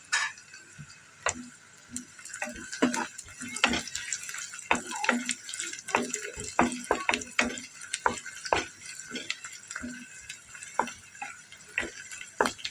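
Wooden spatula stirring sliced onions, garlic and green chillies in a non-stick wok, with irregular knocks and scrapes against the pan over the steady sizzle of hot oil.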